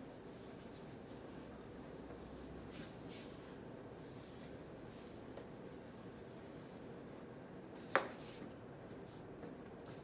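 Faint rubbing of a whiteboard eraser wiping marker off a whiteboard, with one sharp click about eight seconds in.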